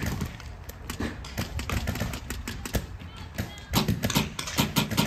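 Paintball markers firing in quick, irregular runs of sharp pops, thickest in the second half.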